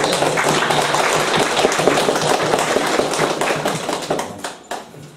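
A small audience clapping, dying away with a few last claps about four to five seconds in.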